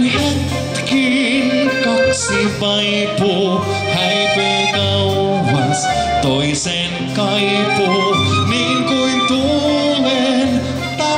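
Live dance-band music with accordion to the fore, alongside electric guitar, flute and a drum kit, playing steadily.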